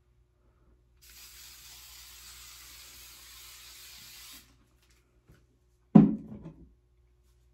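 Aerosol can of hair spray sprayed onto a wig in one steady hiss lasting about three and a half seconds. About six seconds in comes a short, loud thump.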